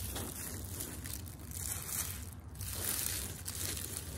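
Soft rustling and crinkling in swells as a hand in a thin plastic glove spreads soaked glutinous rice over the lined tray of a steamer basket, over a steady low hum.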